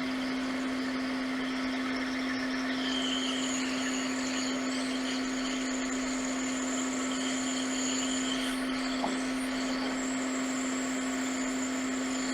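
Hot air rework station blowing steadily with a constant fan hum and airy hiss, heating the board to solder the replacement USB-C power controller chip.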